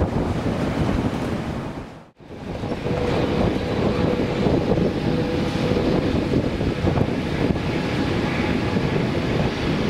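Boeing 787-8 airliner's jet engines running on the runway as a steady noise with wind buffeting the microphone, and a faint steady whine for a few seconds in the middle. The sound drops out briefly about two seconds in.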